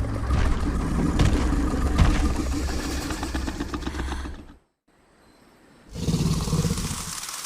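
Film demon creature sound effects: a rumbling, rattling growl of about four and a half seconds that cuts off, then after a second of silence a shorter, hissier one.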